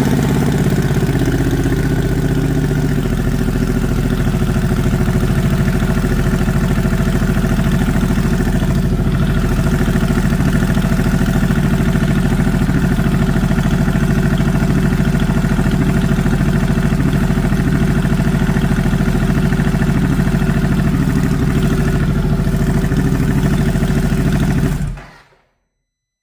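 Harley-Davidson Pan America's Revolution Max 1250 V-twin idling through an open A1 Cycles stainless exhaust with no dB killer fitted. The idle wavers for the first couple of seconds after starting, then holds steady, and the engine cuts off about 25 seconds in.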